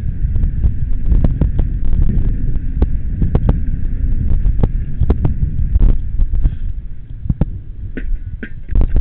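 Mountain bike rolling downhill over a rough concrete path: a heavy low rumble of tyres and wind buffeting the microphone, with frequent rattling clicks and knocks as the bike jolts. The rumble eases near the end.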